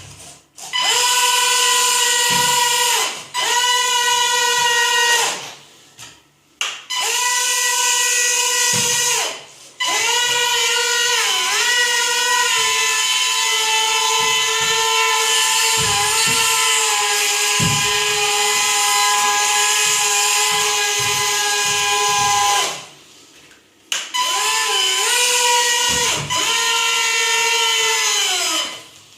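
Twin tiny brushed tail motors of a V911 helicopter, turning small tail propellers, whining at a high steady pitch in five runs of throttle; each run starts quickly and winds down with the pitch falling, and the pitch dips briefly a few times mid-run.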